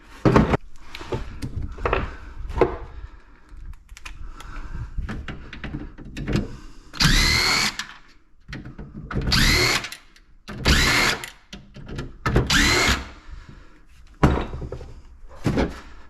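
Power drill run in four short bursts, each whine rising in pitch as the motor spins up, with knocks and clatter of metal and plastic parts between them.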